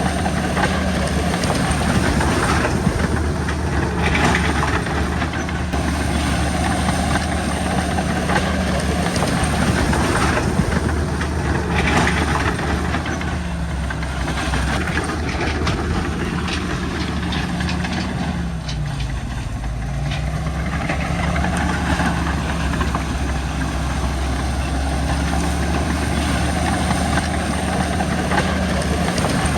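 Crawler bulldozer's diesel engine running steadily, with clanking and clatter from its steel tracks. The engine note sags briefly and recovers twice, most clearly about two-thirds of the way in, as it takes load.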